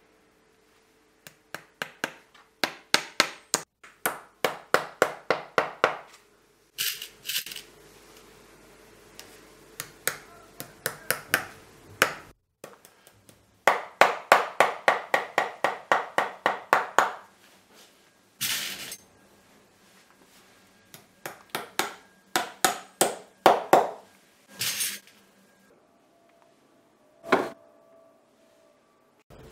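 A cobbler's hammer tapping tacks into a leather sole on a shoe last. The taps come in quick runs of several strikes a second with short pauses between runs, each strike sharp and ringing.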